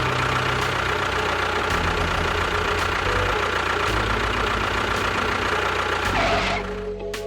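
Engine idling steadily, with a thin steady whine over it.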